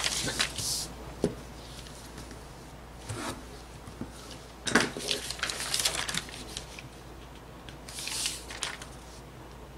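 Sheets of thin pattern paper rustling and crinkling as they are handled, folded and smoothed flat on a table, in a few short bursts with quieter pauses between them.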